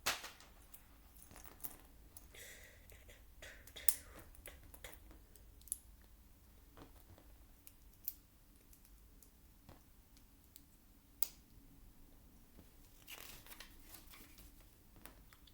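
Small plastic Lego pieces being handled and fitted: faint, scattered sharp clicks, with a couple of brief rustles.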